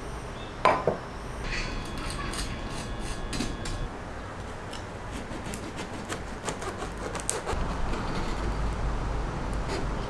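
Ice clinking in a glass of iced coffee, with a sharp ringing clink near the start and a run of lighter glassy clicks. Then a serrated bread knife saws through the crust of a freshly baked whole-wheat fig loaf on a wooden board, with crisp crackles.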